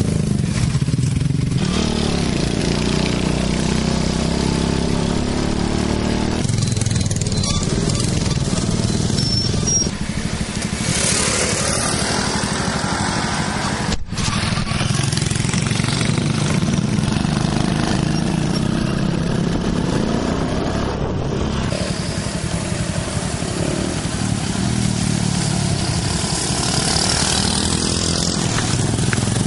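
Honda Cub four-stroke flat-single engine running steadily under way, with a brief break in the sound about fourteen seconds in.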